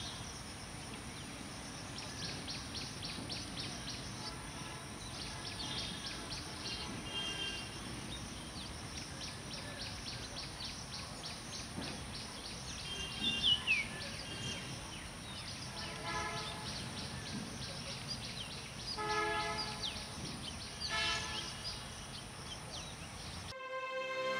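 Outdoor ambience beside a railway line: a steady low rumble from a diesel-hauled freight train of tank wagons moving away, with birds chirping throughout and a few short calls. A cut to music comes in the last second.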